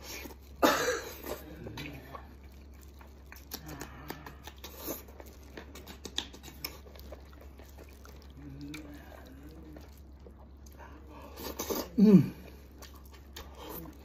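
Close-up mouth noises of a man eating stewed lamb leg with his hands: wet chewing and lip smacking, with a louder slurp about half a second in and another short loud burst near the end.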